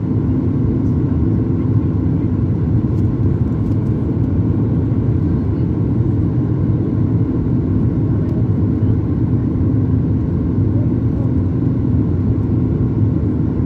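Steady low rumble inside the cabin of a Boeing 737 MAX 8 in flight: airflow and the CFM LEAP-1B engines, with a faint steady hum in it.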